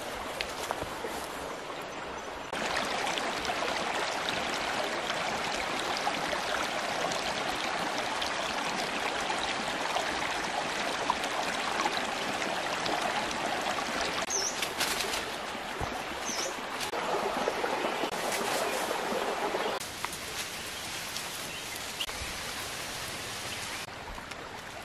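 Shallow rocky creek water running: a steady rushing hiss that steps up and down in level a few times.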